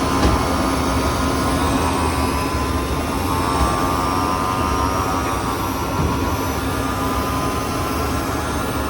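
2022 Tesla Model 3's electric A/C compressor running with a steady whine over a low drone: the noise of an internal compressor failure.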